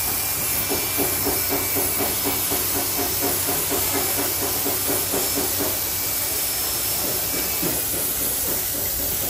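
Steady hiss of compressed air from a body-shop air tool, with a fast, faint pulsing underneath for most of the first six seconds.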